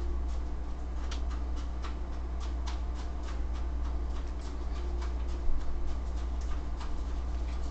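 Small irregular clicks and ticks, several a second, from a matte lip gloss being handled and applied, over a steady low hum. One click about five and a half seconds in is a little louder than the rest.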